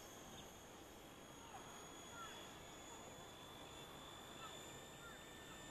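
Near silence: the faint, steady high whine of a distant micro RC helicopter (Microheli S300C) in flight, with a few faint short bird chirps.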